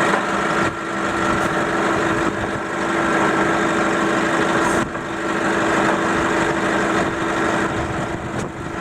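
Forklift engine idling steadily, a constant hum with a few brief dips in level.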